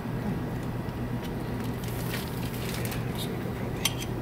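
Hands handling parts inside the magnet assembly: scattered light clicks and rustles over a steady low background hum.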